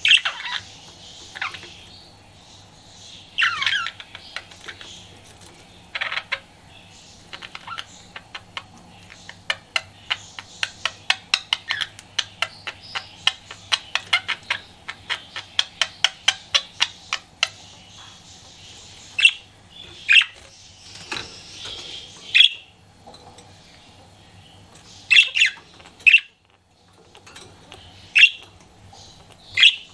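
Pet budgerigars calling with short, sharp, falling chirps and squawks, with a fast run of clicks at about four a second through the middle.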